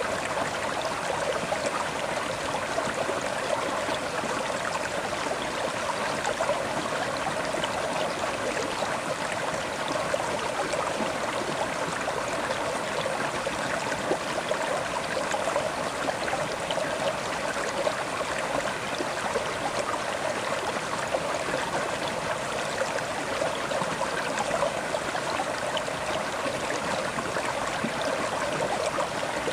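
River water flowing over rocks: a steady rushing and babbling, with fine splashing and gurgling.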